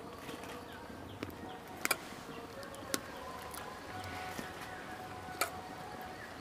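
Quiet rural outdoor background with faint bird calls, broken by a few sharp clicks.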